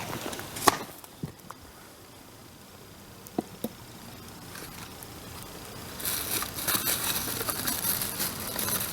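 Wood bonfire crackling, with scattered sharp pops at first and denser, louder crackling from about six seconds in.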